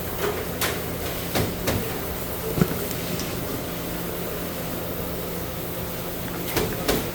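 Steady low mechanical hum under a constant hiss, with a handful of short sharp clicks and knocks scattered through, the sharpest about two and a half seconds in.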